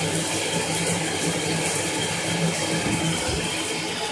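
Water running steadily from a shower head into a bathtub, with a faint steady hum in the plumbing.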